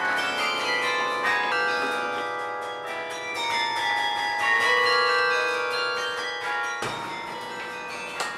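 Carillon bells playing a tune, each struck bell ringing on and overlapping the next notes.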